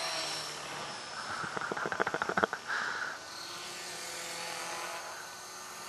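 Radio-controlled model helicopter flying, its motor and rotor giving a steady whine that drifts slightly in pitch. A quick run of clicks comes about two seconds in.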